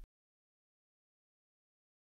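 Near silence: a gap in the narration with no sound at all.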